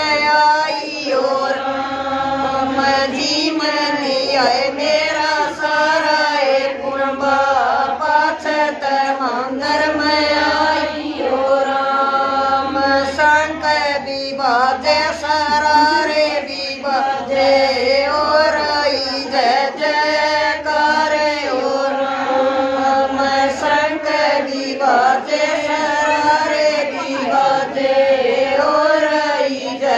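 Women singing a Haryanvi devotional bhajan together in a steady, repeating chant-like melody.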